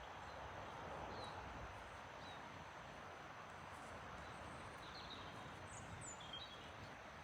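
Faint outdoor ambience: a steady soft hiss with a few scattered, faint bird chirps.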